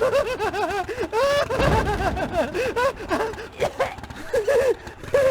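High-pitched cartoon character voices giggling and snickering in quick, repeated squeaky syllables.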